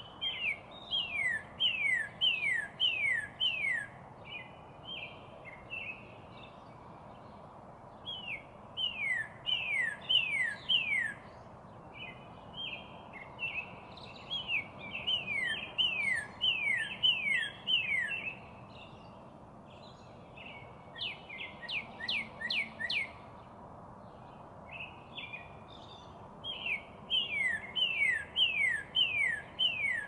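Northern cardinal singing: phrases of repeated downslurred whistles, about two notes a second, each phrase lasting a few seconds with pauses between. A little after the middle comes a quicker run of short, steep notes.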